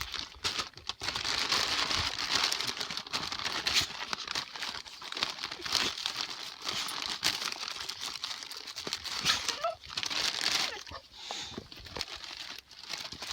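A bag crinkling and rustling unevenly as it is handled and opened.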